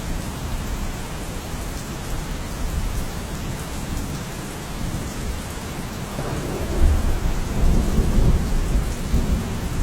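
Steady heavy rain, with a deep low rumble underneath that swells louder about seven seconds in.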